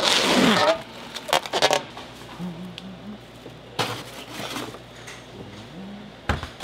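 Plastic cling film crinkling at the start, followed by a few short knocks and rustles, then the door of a stainless under-counter refrigerator shutting with a knock near the end.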